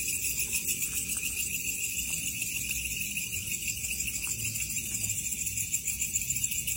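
A chorus of insects chirping steadily in several high-pitched, rapidly pulsing trills.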